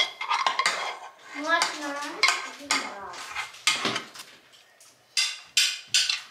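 Metal spoon scraping semolina porridge out of a saucepan and clinking against its rim and the ceramic bowls, a quick run of scrapes and knocks. Near the end it turns into a string of short, evenly spaced clinks.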